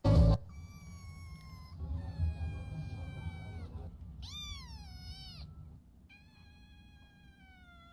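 Cat meowing four times in long, drawn-out meows; the third is the loudest and rises then falls in pitch. A short loud burst comes right at the start.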